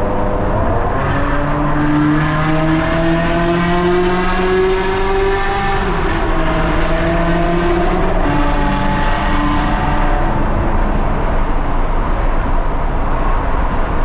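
Ferrari 360 Spider's 3.6-litre V8 accelerating through the gears. Its pitch climbs for about five seconds, drops at an upshift about six seconds in, climbs again, and shifts once more near eight seconds. After that it eases into a steadier run under road noise.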